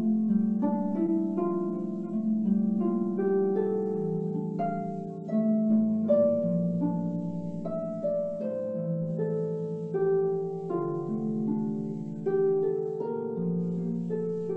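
A harp played solo: a melody of plucked notes, each ringing on, over lower notes in the bass.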